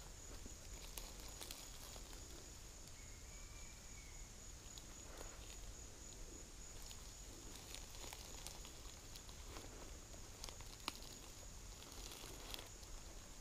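Slow, careful footsteps rustling and crunching through dry leaf litter, with scattered small crackles of leaves and twigs underfoot, faint throughout.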